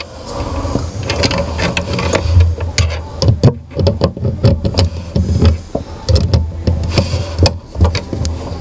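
Small metal PC cooler mounting parts (standoffs, nuts, back plate) being handled and fitted: irregular clicks and light knocks, over a steady low hum.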